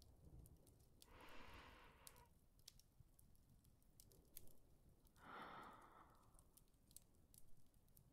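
Near silence broken by two soft, faint sighing breaths from a woman, one about a second in and another about five seconds in, with a few faint clicks.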